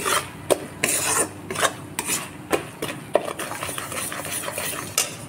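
Metal spatula scraping and stirring flour as it roasts in butter in a metal kadhai, the roux stage of a white sauce. Sharp scrapes come about twice a second, then turn to softer, steadier rubbing about three and a half seconds in.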